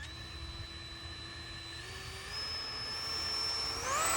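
Electric ducted fans of a Freewing 70mm F-22 Raptor RC jet whining as the throttle is advanced for takeoff. The pitch climbs in steps, then jumps up sharply and gets louder near the end as the fans spool up.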